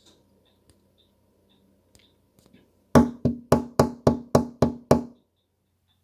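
Eight loud knocks in quick succession, about four a second, each with a short hollow ring, knuckles rapping on a hard surface close by.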